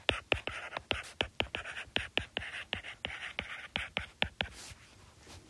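Stylus writing on a tablet screen: quick taps and scratches of the tip, about four a second, as words are handwritten.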